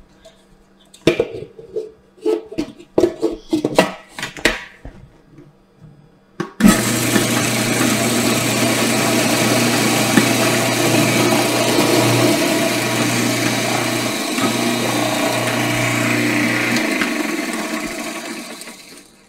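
Food processor blitzing pretzel crumbs with sugar and melted butter. A few short clunks and knocks come first, then the motor starts suddenly about six seconds in, runs steadily for about ten seconds and winds down near the end.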